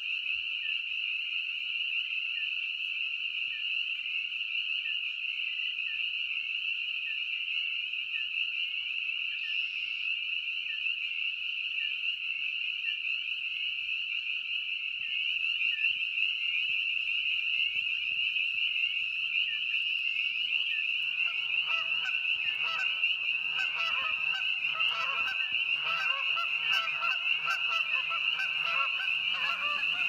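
Dense chorus of spring peepers, a steady high peeping. About two-thirds of the way in, geese start honking over the chorus and keep on.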